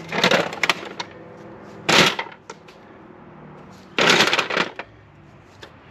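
Three short bursts of clattering, about two seconds apart, from hand tools and parts being handled.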